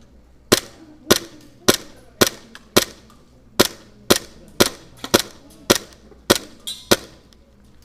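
Gas blowback airsoft pistol firing about a dozen sharp single shots at a steady pace of roughly two a second, stopping about seven seconds in.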